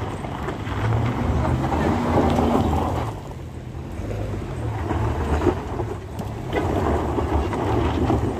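A vehicle engine running at a low, uneven throb, easing off slightly about three seconds in, with people's voices over it.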